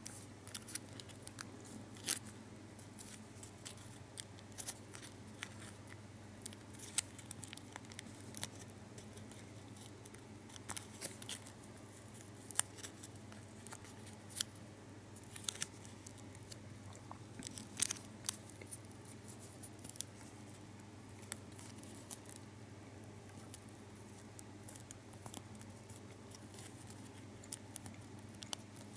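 Fingers folding and creasing a tiny foil-backed Lotte Xylitol gum wrapper: small crinkles and sharp little clicks at irregular intervals, over a steady low hum.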